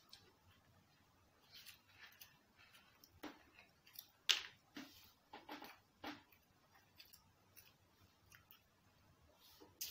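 Faint eating sounds from fried chicken being eaten by hand: scattered short crunches and crackles, the loudest about four seconds in.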